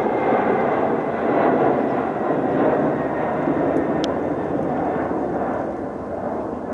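Jet noise from a Boeing 747-400 freighter's four turbofan engines on its climb-out after takeoff: a dense, steady rush with a faint high whine, slowly fading near the end as the aircraft climbs away.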